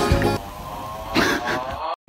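Background music that drops quieter about half a second in, with a wavering pitched sound near the end, then cuts off abruptly for an instant.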